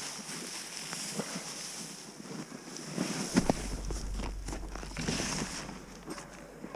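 Wind buffeting the microphone, with a low rumbling stretch in the middle and a few short knocks just before it.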